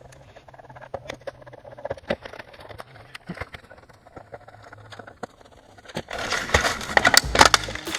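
Small clicks and scrapes of a screwdriver working screws out of a portable car air compressor's plastic housing. About six seconds in a much louder, denser clatter starts suddenly.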